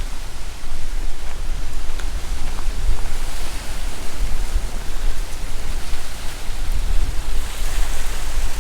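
Strong wind buffeting the microphone: a loud, steady rushing noise with a fluttering low rumble.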